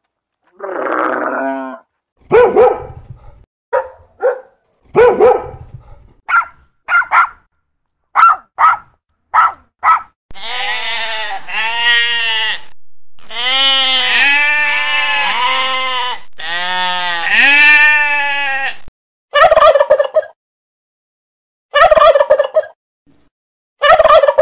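Short animal calls, then sheep bleating in long calls for about eight seconds in the middle. Near the end comes a wild turkey gobbling in short loud bursts.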